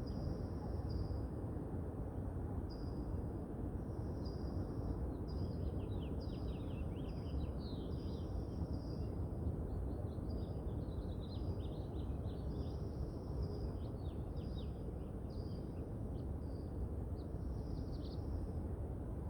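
Birds singing with short high calls and quick falling notes, repeated many times over a steady low rumble of wind and distant city noise.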